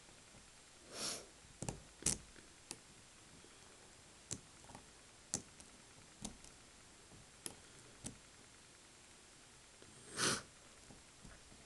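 Lock picks working the pin stack of a Kasp 180 series padlock with a tension wrench applied: scattered sharp, irregular metallic clicks. Two short hissing rushes of noise, about a second in and near the end, are the loudest sounds.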